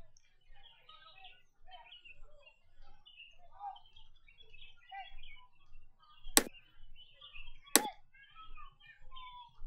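Many small birds chirping steadily. Two loud, sharp clicks come about a second and a half apart in the second half: the mouse-click sound effect of a subscribe-button animation.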